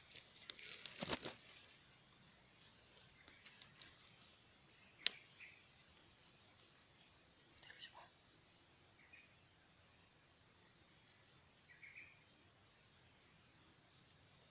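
Steady high-pitched chirring of insects such as crickets, with a brief rustle near the start and one sharp click about five seconds in.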